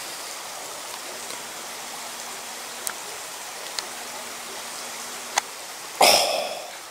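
Shallow mountain stream flowing steadily over rock, with a few faint ticks and a short, loud burst of noise about six seconds in.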